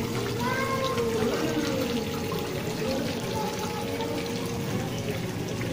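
Water steadily pouring and trickling into a koi pool, with a low steady hum beneath it.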